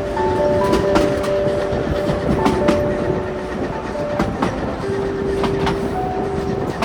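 Vintage railway carriage rolling along the track: a steady rumble with irregular clicks and knocks, and held ringing tones that shift pitch every second or so.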